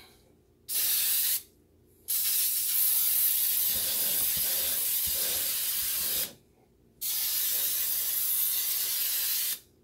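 Aerosol cooking spray hissing from the can into a bundt pan to grease it, in three bursts: a short one, then two long sprays of about four and two and a half seconds.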